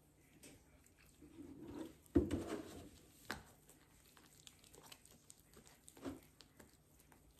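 A hand squishing and mixing soft biscuit dough in a bowl, with faint small clicks and rustles throughout. A sharp knock just after two seconds in, the loudest sound, as a plastic milk jug is set down on the counter.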